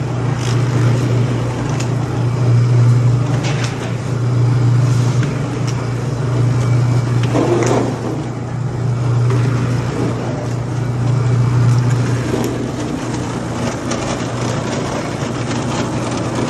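Bakery dough-moulding machine running with a steady low hum that swells and eases every few seconds, with a few light knocks.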